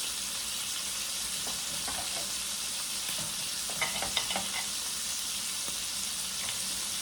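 Tri-tip steaks sizzling steadily in a frying pan, with a few short clicks about four seconds in.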